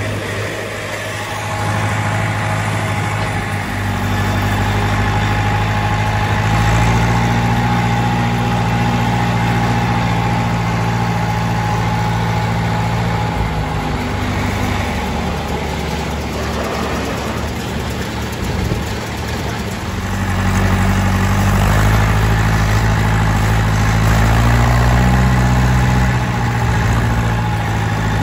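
John Deere 2510 tractor engine running steadily, heard from the tractor itself, its pitch and loudness shifting a few times.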